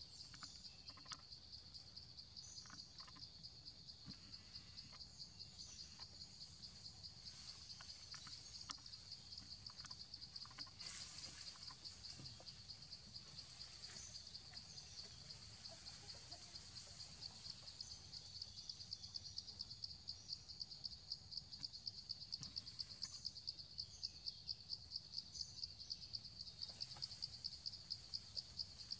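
Faint forest insect chorus: a steady high-pitched buzzing trill that pulses rapidly and evenly, the pulses growing more distinct in the second half. A faint low rumble runs underneath.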